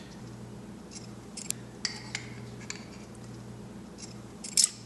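Ring of metal measuring spoons clinking against each other and tapping a ceramic bowl while lemon juice is spooned out: scattered light clicks, then a louder clatter near the end.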